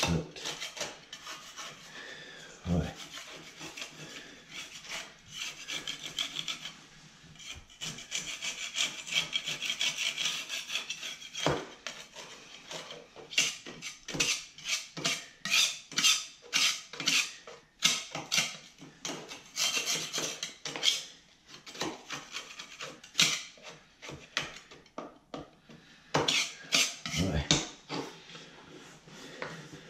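Water-soaked drywall being scraped and picked away at its base with a metal hand tool: a run of quick, irregular scraping and crumbling strokes, coming thickest in the second half.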